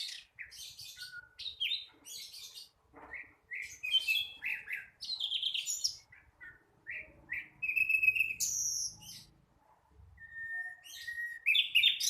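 A young sikatan londo (flycatcher) singing a varied, jumbled run of chirps, short slurred notes and warbled phrases, with one longer steady whistle near the end: the unfinished practice song of a bird still learning its song.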